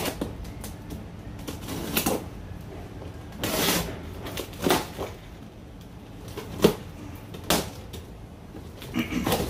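Hands handling metal spoon fishing lures and their packaging: scattered clicks and light knocks, with a short rustle about three and a half seconds in.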